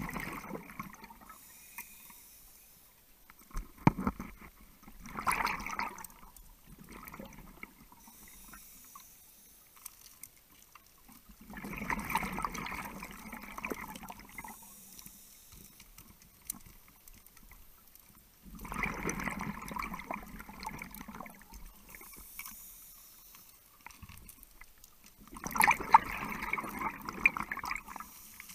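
Scuba diver breathing underwater through a regulator. The exhaled bubbles stream out in bursts of about two seconds, roughly every seven seconds, with a sharp knock about four seconds in and fainter clicks in between.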